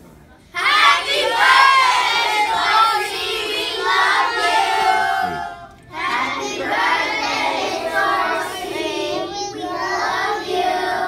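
A group of young children singing together, breaking off about five and a half seconds in, followed by another group of children singing together.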